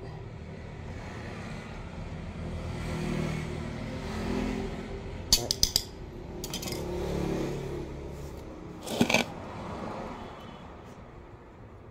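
Hands scraping and digging potting soil out from around a bonsai's roots. Several sharp clicks come a little before halfway through, another just after, and a louder pair about three quarters of the way through, over a low steady rumble.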